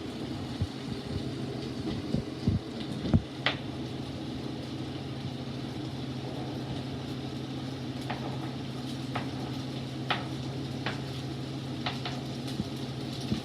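Diced onions and scallions sizzling in oil in a frying pan, with scattered sharp clicks of a utensil stirring against the pan over a steady low hum.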